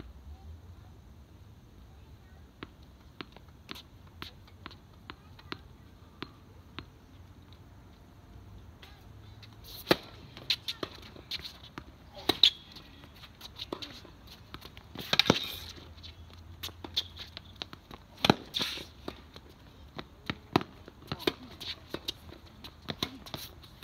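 Tennis ball knocks: fainter ticks early on, then sharper racket strikes and ball bounces every second or two from about ten seconds in.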